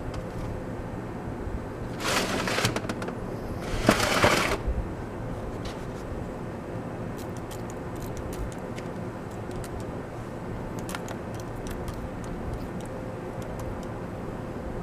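Two short hissing sprays, each under a second and about two seconds apart: soapy water being sprayed onto the refrigerator condensing unit's joints and gaskets to check for leaks.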